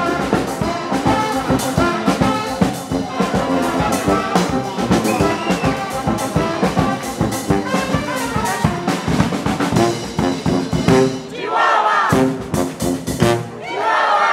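Street brass band playing a lively tune: trombone, trumpets and sousaphone over a steady bass drum beat.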